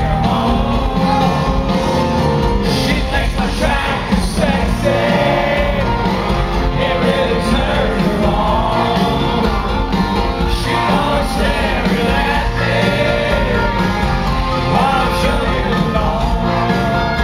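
Live country band performing with a lead singer, played loud through a concert PA and picked up by a handheld camera's microphone in the audience.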